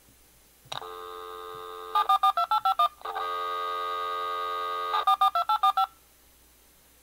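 US Robotics Courier V.Everything modem's speaker dialing out. A dial tone, then seven rapid touch-tone digits, a short break, a second dial tone, and seven more rapid touch-tone digits, which dial the call-recording server's number and then the answering modem's number.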